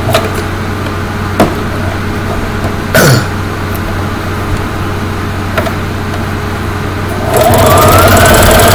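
A low steady hum with a few sharp clicks as the fabric is set under the needle. About seven seconds in, a Brother LX3850 electric sewing machine starts stitching: the motor whine rises a little, then holds steady with the needle mechanism running. This is a test-sew after replacing the rotary hook shuttle.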